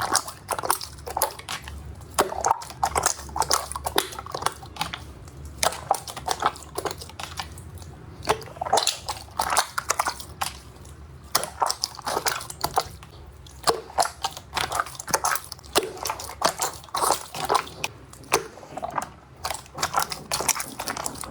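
Slime being squeezed and kneaded by hand, making irregular wet clicks and pops in quick clusters.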